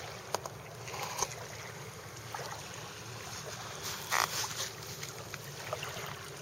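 Low water noise around a kayak on the water, with a few small knocks and a short splash about four seconds in.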